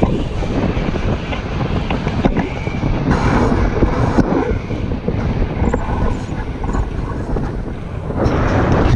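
Strong wind buffeting the microphone during tandem paragliding in turbulent, high-wind air: a loud, low rumble that swells and eases in gusts.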